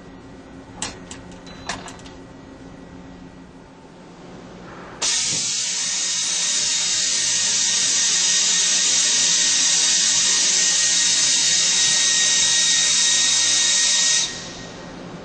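Okuma LT 300 CNC lathe in its machining cycle: a low machine hum with a few light clicks. About five seconds in, a loud steady hiss with a faint whine starts, runs for about nine seconds and cuts off suddenly.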